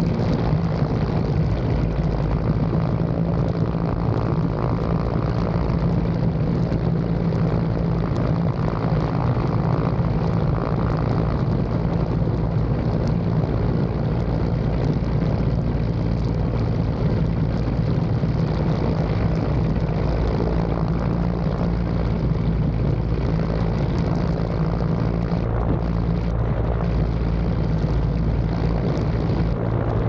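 Helicopter turbine engines and rotor running steadily close by, a loud unbroken aircraft drone with a strong low hum and rushing wind.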